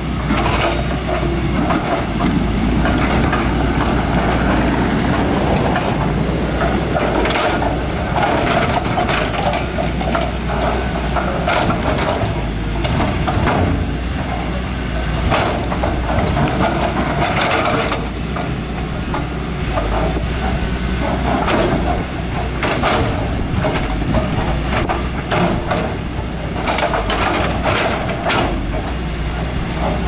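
Heavy earthmoving machinery at work: a diesel engine runs steadily under irregular metallic clanks and knocks.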